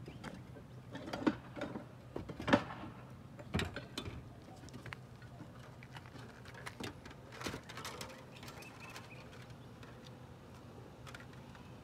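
Irregular knocks and clicks on a clay tile roof during repair work, several sharp ones in the first few seconds and sparser later, over a faint steady low hum.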